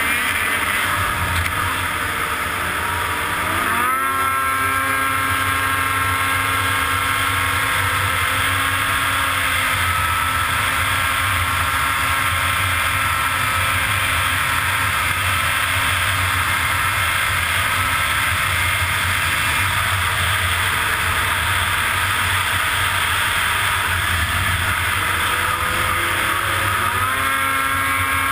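Snowmobile engine running hard at high revs, with a steady rush of noise; its pitch climbs about four seconds in as the throttle opens, holds steady, and climbs again near the end.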